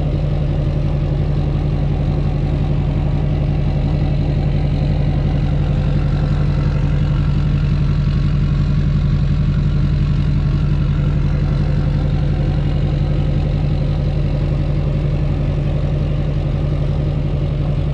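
Straight-piped LBZ Duramax diesel V8 idling steadily, an even low drone at a constant level.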